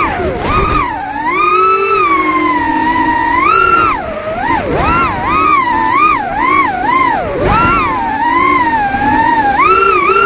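FPV racing quadcopter's brushless motors and propellers whining loudly, the pitch swooping up and down constantly with the throttle, with a few sudden dips where the throttle is chopped.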